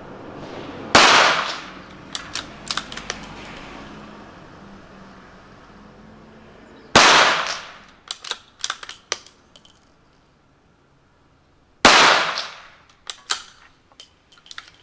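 Three shots from a CZ 455 bolt-action rifle in .22 WMR, about a second in, then roughly six and five seconds apart, each a sharp crack with a short ringing tail. Each shot is followed by a quick run of small metallic clicks as the bolt is worked to chamber the next round.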